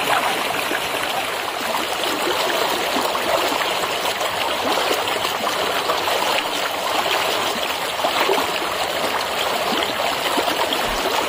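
Steady rush of flowing water from a mountain stream.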